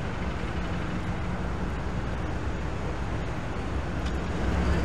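Steady city street traffic: the running of passing cars and buses with a low engine hum, swelling slightly about four seconds in.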